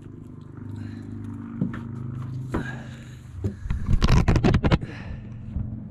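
Fishing reel being cranked with a steady low whir while a catfish is fought in on the line, with a loud burst of rapid clattering about four seconds in that lasts about a second.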